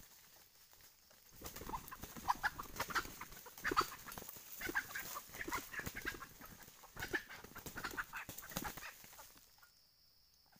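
Red junglefowl rooster squawking and flapping its wings in dry leaf litter as it is caught in a trap, mixed with the rustle and crunch of the leaves. It starts about a second and a half in and dies away near the end.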